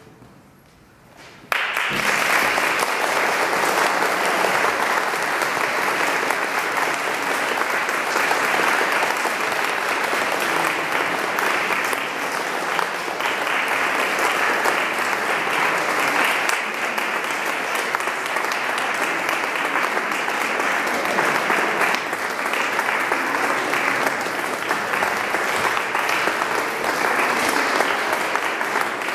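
Concert audience applauding, starting suddenly about a second and a half in and holding steady.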